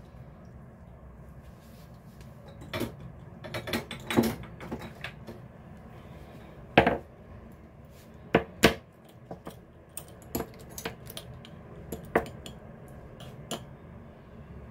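Irregular clinks and knocks of a metal spoon and dishes being handled, about a dozen scattered strikes. The loudest comes about seven seconds in.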